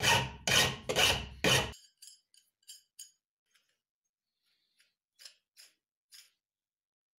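Flat hand file stroking across a steel part held in a bench vise: four loud rasping strokes at about two a second, then only faint short scrapes and ticks.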